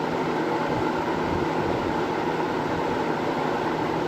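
20-inch Kmart (Lakewood) model K223 box fan running on high: a steady rush of air with a low motor hum.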